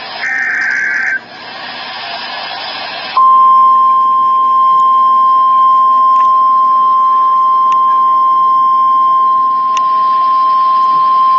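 NOAA Weather Radio emergency alert signal: a short burst of SAME digital header screech ends about a second in, followed by a couple of seconds of static hiss. About three seconds in, the steady single-pitched 1050 Hz warning alarm tone starts and holds, announcing a tornado warning.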